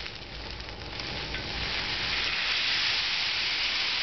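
Dry whole-grain couscous poured into a stainless steel pot with a little hot cooking oil, the grains sizzling in the oil. The hiss grows louder about two seconds in as more grains land.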